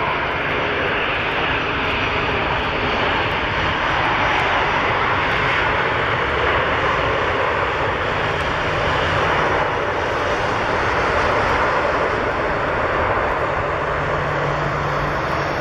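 Twin GE90 jet engines of a Boeing 777-300ER on its landing rollout just after touchdown: a loud, steady rush of jet noise.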